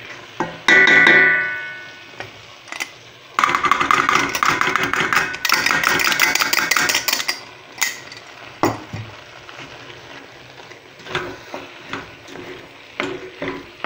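A wooden spoon stirring bulgur and purslane in a metal cooking pot. About a second in, a knock against the pot rings out and fades over a second; then several seconds of loud scraping and clattering of the spoon in the pot, followed by quieter stirring with a few scattered knocks.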